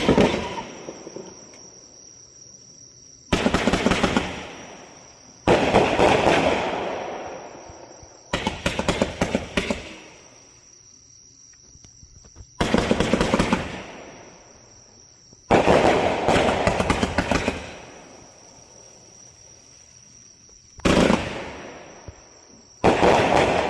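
Winda Fireworks' Presto Chango (P5538) consumer fireworks cake firing: about seven volleys of rapid shots, each a quick string of launches lasting a second or two and fading out, with pauses of a few seconds between them.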